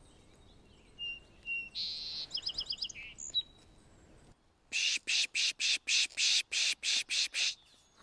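A song sparrow sings once: two clear notes, a buzzy note and a quick trill. Then a birder pishes, about ten short hissing "pish" sounds in quick succession, louder than the song, to draw territorial birds in.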